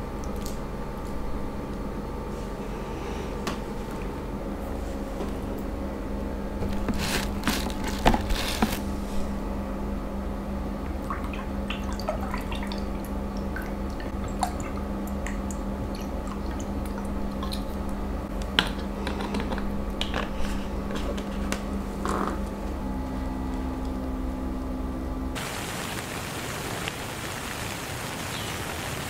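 Close, wet sounds of juicy mango and juice: squishing, dripping, and juice poured from a carton into a glass. Scattered small clicks sit over a steady low hum, which gives way to a steady hiss near the end.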